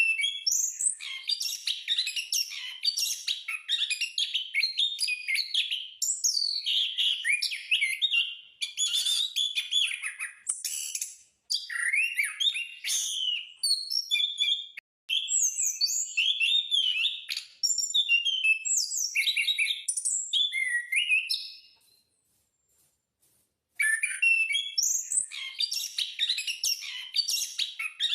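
Anis (punglor, a Geokichla ground thrush) singing in full, continuous song: long bouts of rapid, varied high whistled phrases. There are brief breaks, then a pause of about two seconds near the end before the song resumes.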